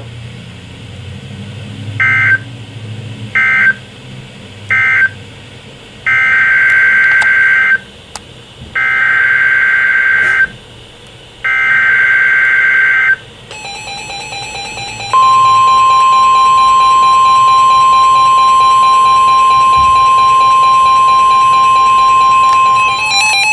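NOAA Weather Radio emergency alert signalling. Three short, buzzy data bursts close the previous warning, then three longer bursts carry the header of a new warning. They are followed by the steady 1050 Hz warning alarm tone, loud and held for about nine seconds, which announces the new warning.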